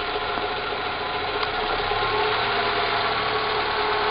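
Renault Logan engine running steadily in first gear, turning the drivetrain and front wheels, with no abnormal noise: normal in first gear, where the right-side wheel bearing or CV-joint noise does not appear.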